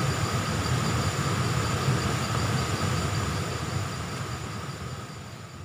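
Fast-flowing jungle river rushing over rocks: a steady, full rumble of water with a few thin, steady high-pitched tones above it. It fades out near the end.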